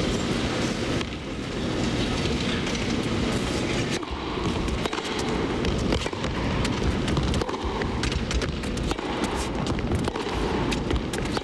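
A tennis rally in an indoor arena: sharp racket strikes on the ball and the players' footwork, over a steady hum of crowd noise.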